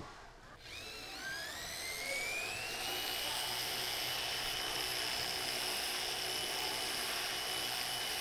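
Flexible-shaft rotary tool with a small sanding drum spinning inside a ring. Its whine starts about a second in, rises in pitch for about two seconds as the motor comes up to speed, then holds steady.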